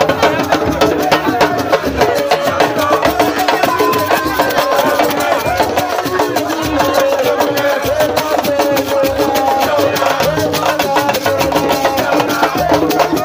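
Fast drumming with a crowd of many voices singing and chanting along.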